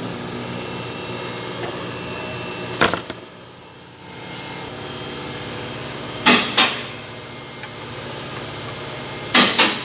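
A few sharp metallic clinks and knocks of parts or tools being handled: one about three seconds in, a pair a little past halfway, and another pair near the end. Under them runs a steady workshop hum.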